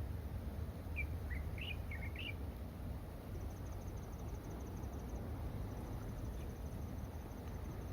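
A small bird chirping a quick run of short, high notes between about one and two and a half seconds in, over a steady low rumble. A faint, rapid insect trill sits high above from about the middle on.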